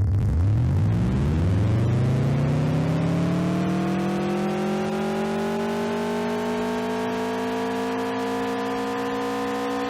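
A 'time speeding up' sound effect: a hum with many overtones that starts suddenly, rises in pitch like a machine spinning up over several seconds, then levels off into a steady tone.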